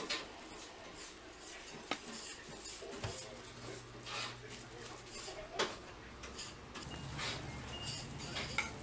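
Scattered light clinks and knocks of metal pots and trays while gloved hands stuff sweet dough with sugar filling for hotteok. A low steady hum comes in near the end.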